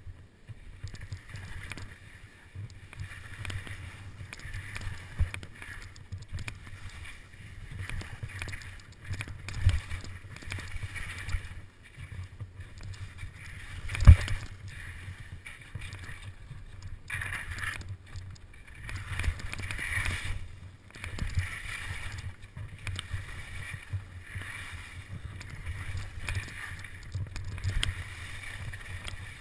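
Skis scraping and chattering over packed snow and moguls, with wind rumbling on the microphone. Scrapes come and go in uneven surges, and there are a few sharp knocks, the loudest about fourteen seconds in.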